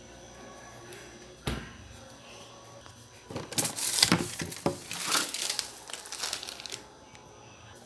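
A single knock about a second and a half in, then about three seconds of crinkling and rustling from objects being handled close to the microphone.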